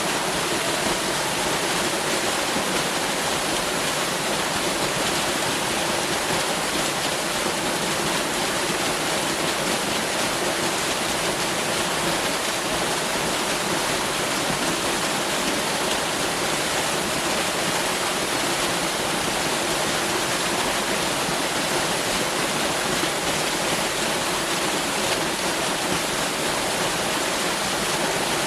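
Waterfall pouring steadily, a constant even rush of water with no breaks or changes.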